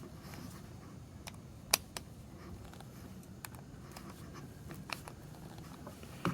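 Faint clicks and ticks from a screwdriver working the plastic case screws of a replacement electrical plug, with one sharper click a little under two seconds in.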